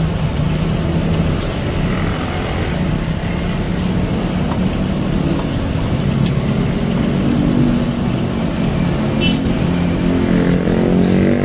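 Steady road traffic with vehicle engines running, and one engine rising in pitch as it speeds up near the end.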